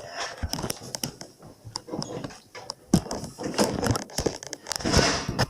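Irregular clicks, knocks and scraping from hands and tools working on a Kenmore dishwasher during its removal, with a longer rustling scrape about five seconds in.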